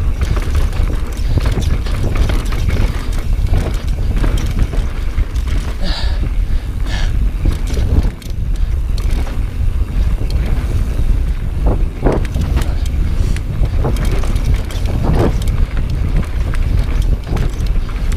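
Wind buffeting the microphone over the rattle and knocks of a Transition Sentinel full-suspension mountain bike rolling fast over rough dirt and slickrock trail. Irregular clatters come as the tyres hit rocks, with a few sharper knocks in the second half.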